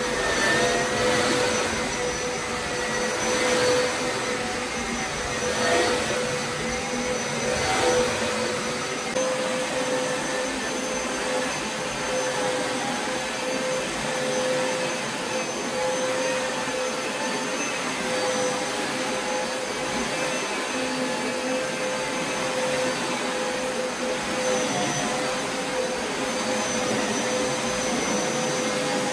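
Upright carpet cleaner's suction motor running with a steady whine over a rushing hiss, swelling in level about every two seconds for the first several seconds, then holding even.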